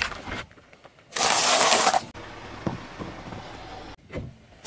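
Car tyre rolling over flattened plastic dessert cups on asphalt: a brief crackle at the start, then, after a short pause, about a second of loud, even rolling noise, followed by quieter tyre noise with a few clicks.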